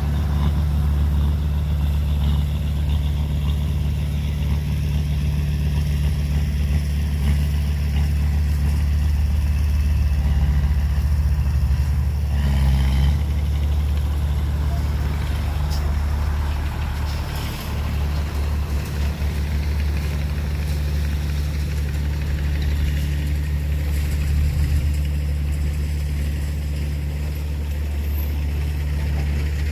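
Heavy diesel engine of earth-moving machinery running steadily with a low drone, with a short burst of extra noise about twelve seconds in.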